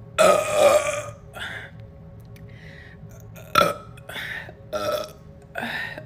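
A woman burping: one long, loud burp right at the start, followed by a series of shorter burps spread through the rest of the moment, the sharpest about three and a half seconds in.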